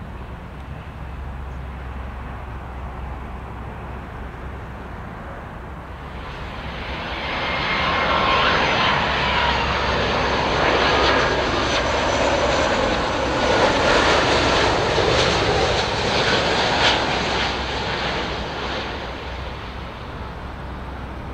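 Airbus A330's twin Rolls-Royce Trent 700 turbofans on final approach, passing close: after a faint low rumble the jet noise builds over a couple of seconds, holds loud with a high fan whine for about ten seconds, then fades away.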